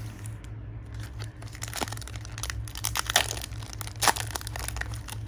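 Foil wrapper of a Pokémon booster pack being torn open and crinkled. The crackling builds from about a second and a half in, with the sharpest tears near three and four seconds in, over a steady low hum.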